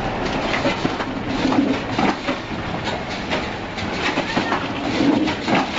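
Automatic multi-sided pad printing machine for screwdriver handles running: a continuous mechanical clatter of repeated clicks and knocks.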